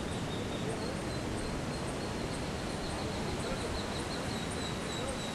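Outdoor ambience: a steady rushing noise with a continuous high insect trill over it, and short high chirps repeating about twice a second.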